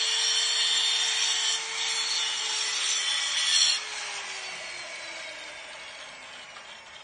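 Electric handheld stone cutter grinding through marble with a harsh, high hiss over a steady motor whine. The cutting stops abruptly a little under four seconds in, and the motor's whine then falls in pitch and fades as the tool spins down.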